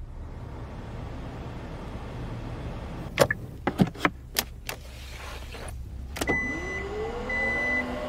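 A run of sharp clicks, then a thump and a Kia Stinger's power tailgate motor whirring up in pitch to a steady whine, with two short warning beeps while the tailgate moves. A low hum sits underneath throughout.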